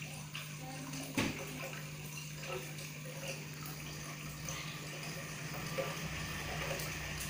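Aquarium water splashing and trickling over the steady low hum of the tank's pump, with one sharp knock about a second in.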